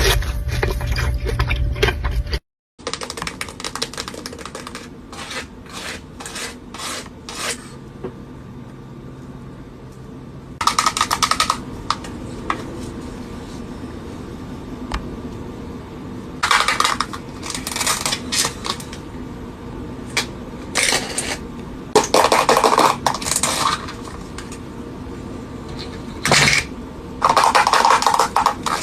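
Close-miked eating sounds: chewing and crunching comes in loud bursts of a second or two, with sharp clicks and clinks of utensils or dishes between them. There is a brief dropout about two seconds in.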